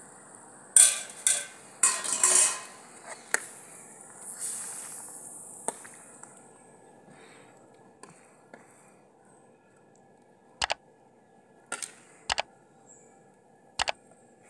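Steel ladle clattering and scraping against a metal kadhai while watermelon-rind pieces are stirred in boiling sugar syrup for petha. A burst of clatter comes in the first few seconds with a hiss from the syrup, then four sharp knocks of the ladle on the pan near the end.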